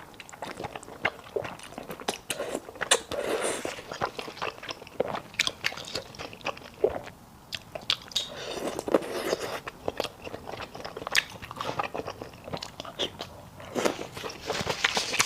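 Close-miked eating of a bowl of sticky malatang: a person biting and chewing the hot-pot food, with crunching and many quick, irregular mouth clicks.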